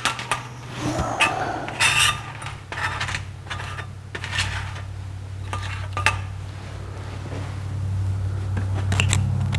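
Scattered sharp metal clinks and taps as a screwdriver and small parts knock against a Rochester 4-Jet carburetor throttle body and a sheet-metal bench top while the throttle valve screws are being removed. A steady low hum runs underneath and grows a little louder near the end.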